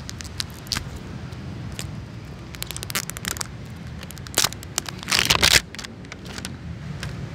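Crinkly plastic wrapping being picked at, peeled and torn off a toy capsule by hand: scattered crackles, with the loudest tearing rustles a little past the middle, over a steady low background rumble.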